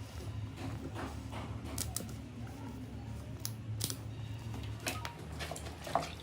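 A few scattered sharp clicks and taps over a steady low hum.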